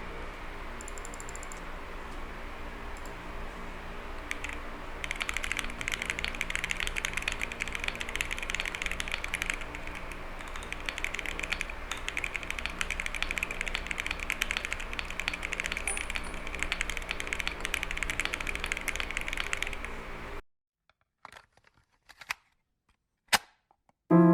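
Monsgeek M1W mechanical keyboard with Akko V3 Cream Yellow Pro switches being typed on fast: a dense, continuous stream of key clacks begins about four seconds in over a steady low hum, stops abruptly near the end, and gives way to a few isolated clicks.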